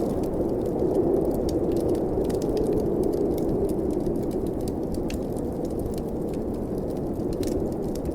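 Blizzard wind blowing steadily with a low rushing, over a wood fire crackling with many small, sharp pops.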